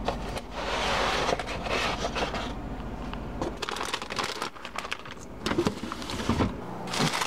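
Food packages being handled in an open refrigerator: a cardboard egg carton is slid off a shelf and a plastic bag of shredded cheese crinkles, with irregular rustling and a few sharp knocks against the shelves. A steady low hum runs underneath and stops shortly before the end.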